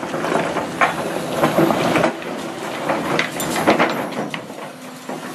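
Excavator bucket digging into broken rock and soil, with stones knocking and grinding against the steel bucket several times over a steady engine hum.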